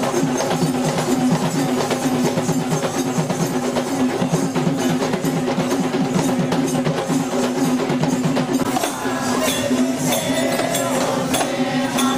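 Traditional Kandyan procession music: fast, dense drumming over a steady droning tone. A wavering higher melody comes in about nine seconds in.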